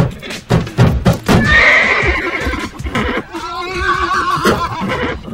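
A few rhythmic thumps, then a long, loud horse whinny that wavers up and down in pitch.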